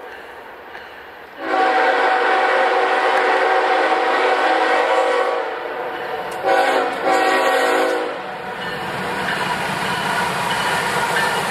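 Diesel locomotive horn sounding for a grade crossing: one long blast starting about a second and a half in, then two shorter blasts, followed by the growing rumble of the approaching train.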